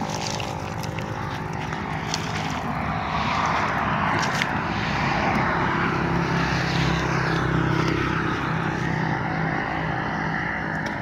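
A steady motor engine drone with a low hum, a little louder through the middle. A few light clicks and rustles sit over it.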